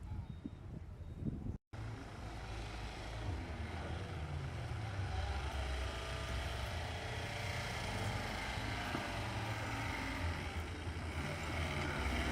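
Off-road 4x4 engine running under load, its revs falling and rising, getting slowly louder. A brief break in the sound comes about a second and a half in.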